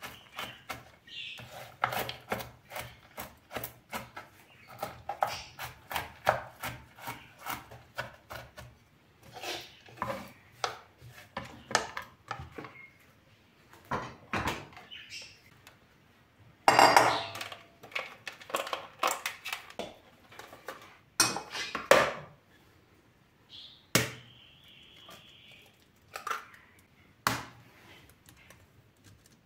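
Kitchen knife chopping walnuts on a wooden cutting board, a steady run of chops for the first several seconds. Then come scattered knocks and clatter of the board, utensils and a glass bowl being handled.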